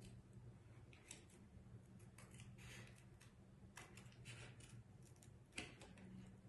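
Scissors cutting through thin cereal-box cardboard: faint, irregular snips about every second, with a sharper snip about five and a half seconds in.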